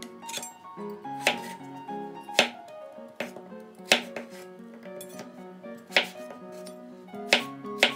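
Chef's knife cutting peeled raw potatoes on a bamboo cutting board: sharp knocks of the blade striking the board, about six loud ones at uneven intervals with lighter taps between, over background music.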